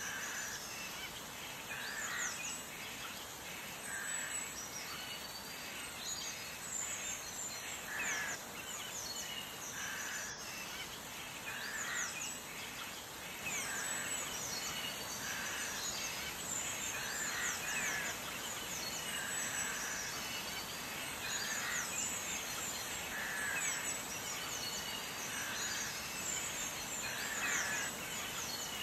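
Birds chirping over a steady hiss: one call repeats about every two seconds, with many quick high chirps between.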